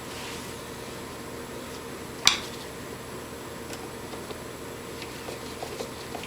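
Small 3D-printed plastic finger parts and a screw being handled: one sharp click a little over two seconds in, then a few faint ticks, over a steady low room hum.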